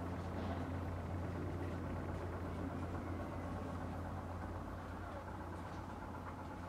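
Steady low mechanical hum, like an engine or motor running at idle.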